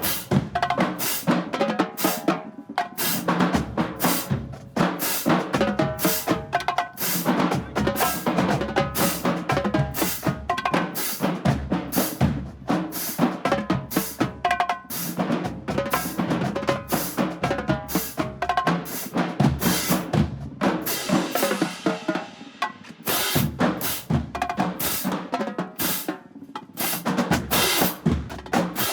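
Marching band drumline playing a fast, steady cadence of snare and bass drum strokes.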